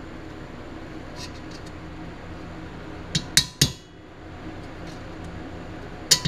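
Ball-peen hammer striking a small steel pin punch: three quick sharp metallic strikes about three seconds in and another at the very end, driving a rusted-in rivet out of stainless steel trim moulding. A steady low hum runs underneath.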